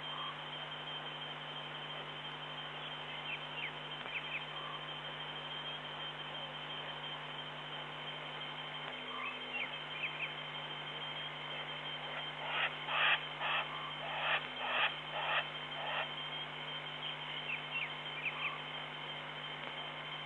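Night bush ambience: a steady hum with a few faint chirps. A little past halfway, an unseen animal gives a run of about eight short, loud calls, a little over two a second, lasting about three seconds.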